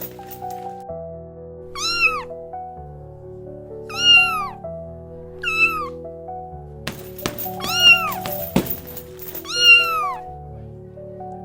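A cat meowing five times, each a short high call that rises and then falls in pitch, over background music of sustained keyboard-like notes. A few sharp knocks sound in the middle, between the third and fifth meows.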